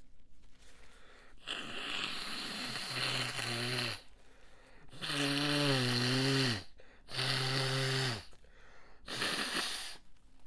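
A person blowing a congested, snotty nose: four long blows. The second and third carry a low buzzing tone, which also comes in at the end of the first.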